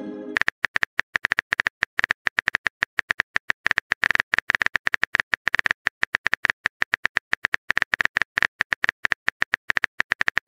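Simulated phone-keyboard typing clicks from the TextingStory app: a rapid, uneven run of short taps, about ten a second, one per letter as a message is typed out. The tail of a chime fades out at the very start.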